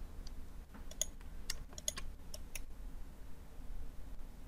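Computer mouse clicking: about eight short, quick clicks in the first two and a half seconds, over a faint low hum.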